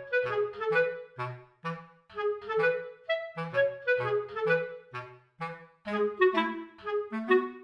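Background music: a light, bouncy tune with a clarinet-like woodwind melody in short detached notes over a plucked bass line.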